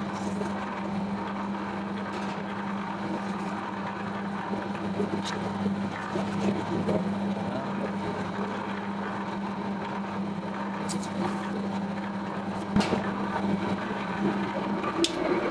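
Bakery dough-kneading machine running steadily: a constant motor hum as its hook churns dough in the steel bowl, with a few sharp clicks in the second half.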